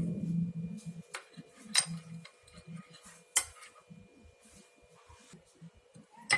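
A spoon clinking sharply against its container four times, well spaced, while ginger juice and honey are stirred together.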